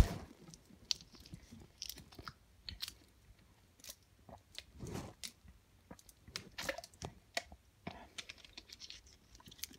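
Quiet, scattered mouth noises, small clicks and crinkles of someone chewing and drinking from a plastic water bottle.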